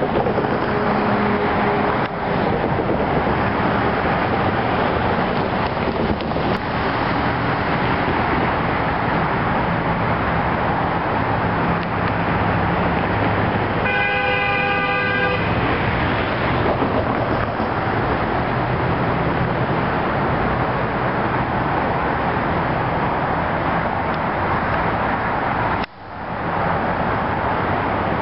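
A single locomotive horn blast lasting about a second and a half, halfway through, sounding several notes at once over a steady rushing background noise. The background briefly drops out near the end.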